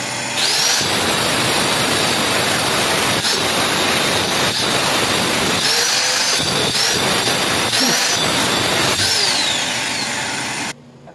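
Handheld power tool cutting through the ceramic tile layer of a counter top. A high motor whine spins up about half a second in, sags and recovers a few times as the blade bites, and cuts off suddenly near the end.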